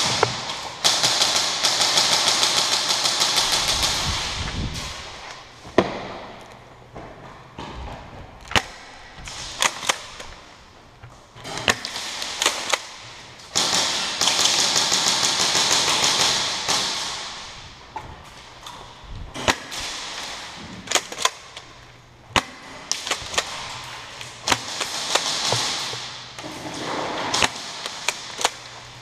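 Airsoft guns firing: three long bursts of rapid automatic fire lasting a few seconds each, with scattered single sharp cracks in between.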